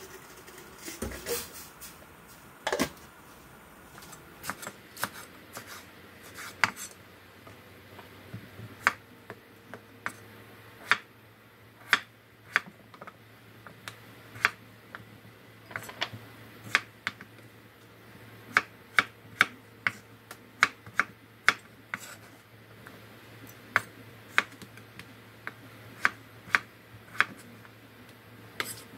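Kitchen utensils clicking and tapping in sharp, irregular strokes, sometimes in quick pairs, with a faint low steady hum that comes in about eight seconds in.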